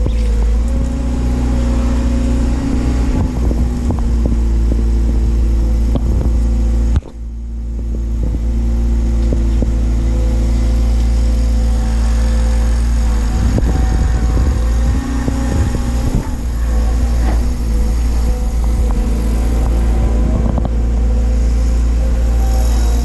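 Doosan DX180 excavator's diesel engine running steadily under load, with higher whining tones that shift as it works and scattered knocks. The sound drops out suddenly about seven seconds in and then builds back up.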